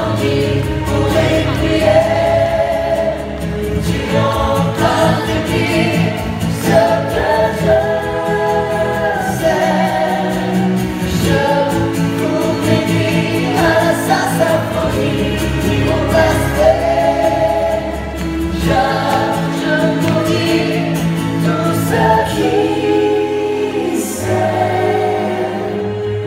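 Live stage-musical cast singing together in chorus, men's and women's voices, accompanied by strummed acoustic guitar and orchestra.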